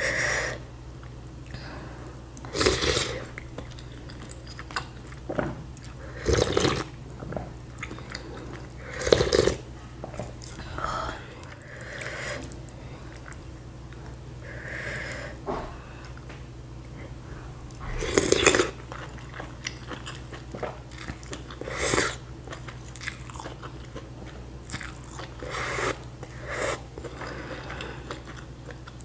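Eating sounds of bakso meatballs and rice vermicelli in soup: wet chewing and biting, with short louder bursts every few seconds, over a steady low hum.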